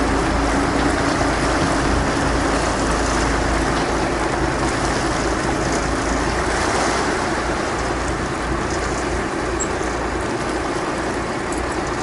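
Steady running of a fishing boat's motor with wind and water noise, a hum in it that fades out about halfway through.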